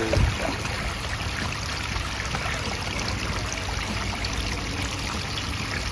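Aquascape pondless waterfall: water running and trickling steadily over the rocks of the falls into the basin. A brief low thump comes just after the start.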